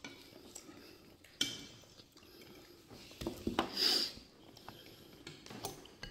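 A metal spoon clinking and scraping against a ceramic bowl of stew, with a sharp clink about a second and a half in and a cluster of clinks and scrapes around three to four seconds in, amid quiet eating sounds.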